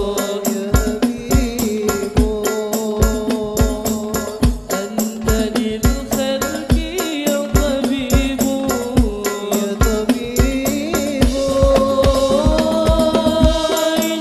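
Hadroh ensemble playing sholawat: a male voice sings a long, winding melody through a microphone over hand-struck frame drums (rebana) and a deep bass drum keeping a steady, driving rhythm.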